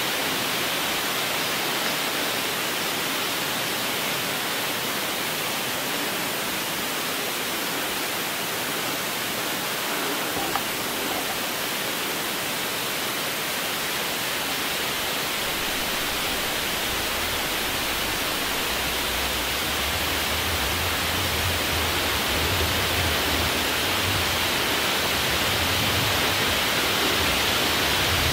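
Steady wind hissing through the trees and leaves, with wind rumbling on the microphone that builds from about halfway through.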